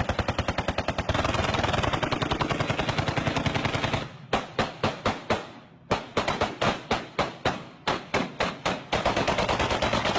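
Celebratory gunfire from rifles. First comes a long stretch of rapid automatic fire. About four seconds in it breaks into separate shots, a few a second, with a brief pause. Rapid fire resumes near the end.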